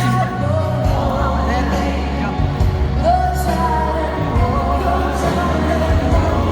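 A pop song playing over loudspeakers: a singer's voice over a steady bass line.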